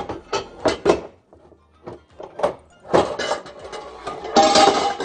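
Metal cooking pots and lids knocking and clattering as a pot is pulled out of a low kitchen cupboard, with several sharp knocks and a louder rattling clatter near the end, over background music.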